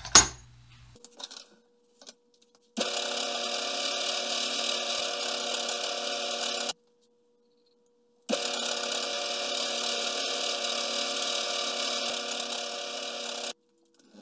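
A sharp click, then a vintage Bertram lathe running while a twist drill in the tailstock bores deeper into a steel round bar: a steady mechanical whirr with hiss, heard twice for about four and five seconds, each stretch starting and stopping abruptly.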